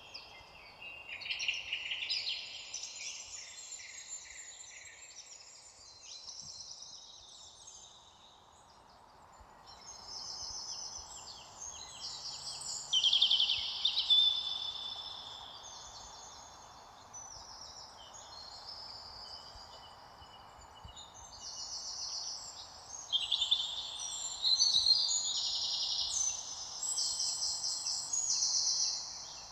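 Several songbirds singing and chirping at once, quick repeated trills and twitters layered over a faint steady background hiss, with bursts of louder song about halfway through and again near the end.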